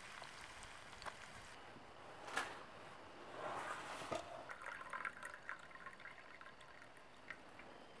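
Pans faintly sizzling over the fire, a sharp metal clank, then liquid poured from a metal camp pot into a steel mug for about a second and a half, followed by a few light clinks.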